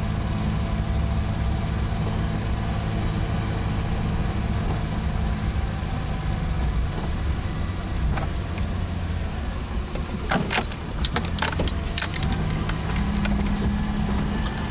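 Steady low engine hum of a moving vehicle, with a cluster of sharp rattling clicks about ten to twelve seconds in.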